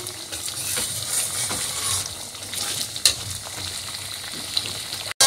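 Boiled chana dal sizzling and bubbling in spiced oil in an aluminium kadai as its water cooks off, with a spatula scraping and knocking against the pan as the dal is stirred and mashed.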